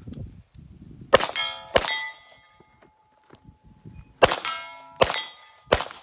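.22 rimfire pistol firing five shots at steel plates, each sharp shot followed by the steel plate ringing from the hit. Two shots come about half a second apart, then after a pause of over two seconds three more come in quick succession.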